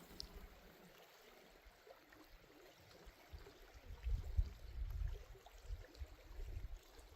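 Faint water lapping and trickling, with an irregular low rumble that grows louder about three seconds in.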